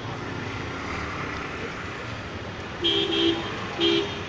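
A vehicle horn honks three short blasts, the first two close together about three seconds in and the third just under a second later, over a steady background of rain and traffic on a flooded street.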